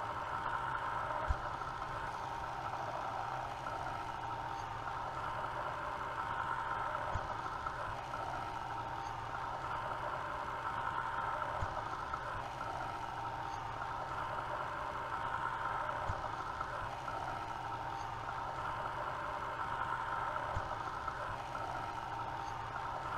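Machine running steadily while a number 20 twist drill bores a radial hole into a small metal ring, with a faint tick every four or five seconds.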